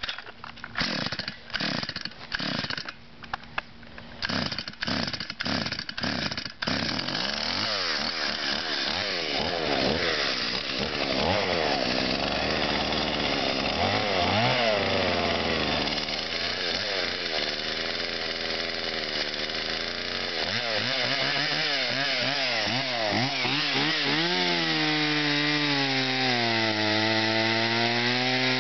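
Stihl MS170 chainsaw's two-stroke engine on a cold start: a run of short strokes for the first six seconds or so, then it catches and runs on. Its speed wanders up and down for a while, then settles into a steadier idle near the end.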